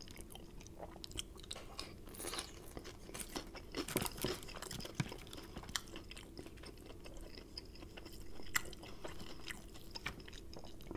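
A person chewing crispy fried chicken, with scattered crunches and small wet clicks.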